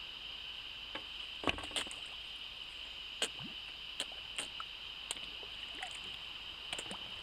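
Fish feeding on floating bread at the surface by the bank: a scattered series of short, sharp slurps and splashes, the loudest about one and a half seconds in, over a steady high-pitched hum.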